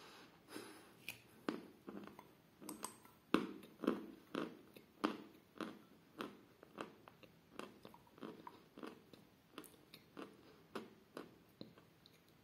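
Chewing a mouthful of edible chalk: a steady run of crisp crunches, about two a second, growing softer toward the end as the chalk is ground down to fine grit.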